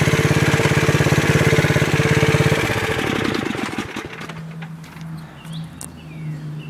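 Snapper riding mower's 8 hp Tecumseh single-cylinder engine running steadily, then switched off about two and a half seconds in, its firing slowing and dying away over the next second or so.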